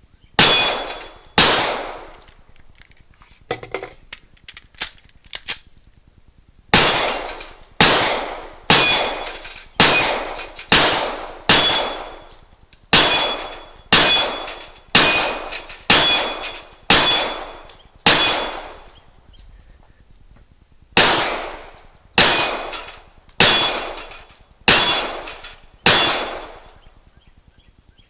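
Glock 17 9mm pistol fired in a steady string of about twenty-two shots, roughly one every 0.8 s, with steel targets ringing after the hits. There is a short pause with a few light clicks after the first two shots and a second pause about two-thirds of the way through.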